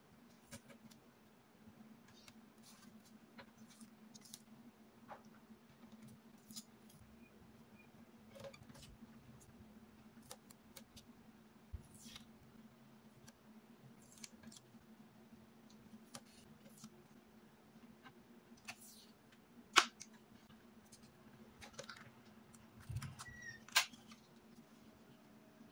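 Paper being handled, folded and creased by hand on a tabletop: faint rustles with scattered small clicks and taps, one sharper click a little past the middle and a few more near the end, over a steady low hum.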